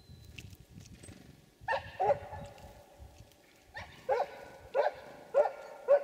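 An animal gives about seven short, harsh calls in two bouts: two calls about two seconds in, then a run of five spaced roughly half a second apart.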